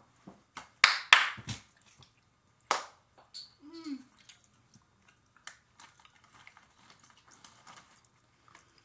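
Mouth and eating sounds of someone chewing peach gummies: a few loud, sharp noises in the first three seconds, a short hummed 'mm' with rising pitch about four seconds in, then faint soft clicks of chewing.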